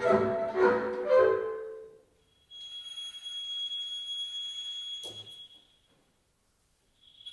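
Contemporary chamber ensemble of flute, clarinet, violin, double bass, piano and percussion playing a run of short, loud accented chords that break off about two seconds in. After a brief silence a single very high note is held for about three seconds, with a short knock near its end, then fades out.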